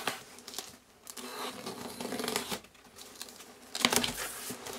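Hobby knife slicing packing tape on a cardboard box, with crinkling tape and cardboard scraping under the hands. A louder rasping tear about four seconds in.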